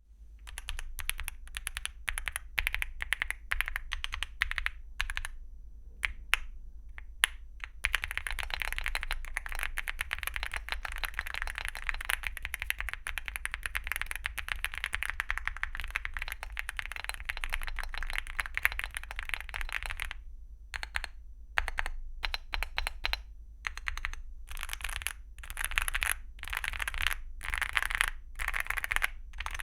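Typing on a Leobog Hi75 mechanical keyboard with Akko V3 Crystal Pro linear switches and XDA-profile PBT keycaps. Separate keystrokes and short runs for the first several seconds, fast continuous typing from about eight seconds in until about twenty, then bursts of typing broken by short pauses.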